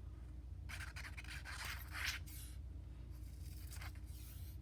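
Scratchy rubbing strokes on paper during paper crafting: a longer stretch of scraping about a second in, then a short stroke near the end.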